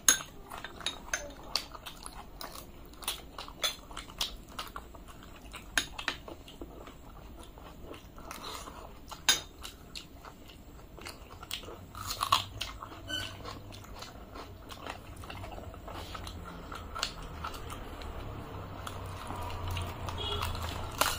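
Close-miked eating sounds: chewing, with many short sharp mouth clicks and smacks. A spoon clinks against a glass bowl at the start, and the crisp puffed fried bread (luchi) is torn by hand near the end.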